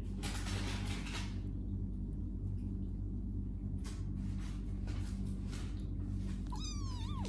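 Kittens purring, a low steady rumble. A brief rustle comes a moment in, and near the end one kitten gives a short, thin mew that rises and then falls in pitch.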